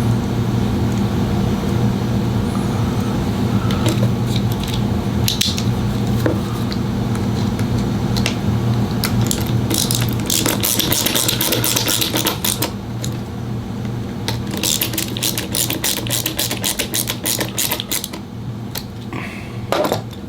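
Clicks and two spells of rapid clicking as a Wahl 5-in-1 clipper blade is reassembled and worked by hand, over a steady motor hum.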